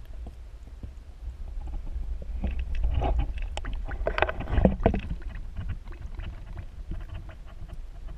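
Muffled underwater sound picked up by a submerged camera in a river: a steady low rumble of moving water. In the middle comes a louder stretch of clicks and knocks as a hand lets go of a smallmouth bass.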